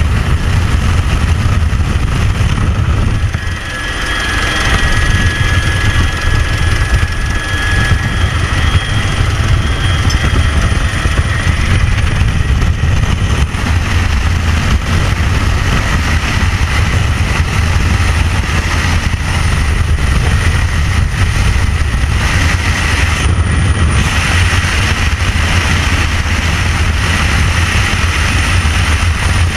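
Jump aircraft's engine and wind rushing past its open door at altitude, loud and steady, with a brief dip about three and a half seconds in.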